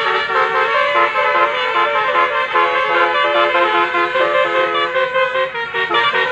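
Telolet musical horns on several buses sounding together: overlapping tootling tunes of short stepped notes, changing pitch several times a second, a noisy din.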